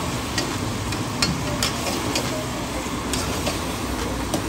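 Karahi cooking in steel woks over high gas burners: a steady rush of flame and sizzling, with sharp metal clinks of a spatula and tongs against the wok every second or so as the meat is stirred.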